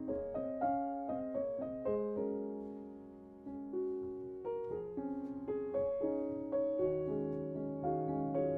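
Background music: a slow, gentle piano melody, one note or chord after another, each fading before the next.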